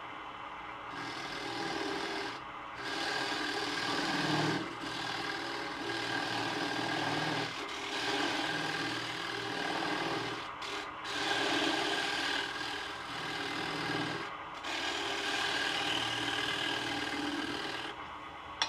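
Carbide turning tool cutting into a spinning wooden blank on a Laguna Revo 12/16 lathe, hollowing out a centre hole. The scraping cuts start about a second in and come in repeated passes with short breaks between them.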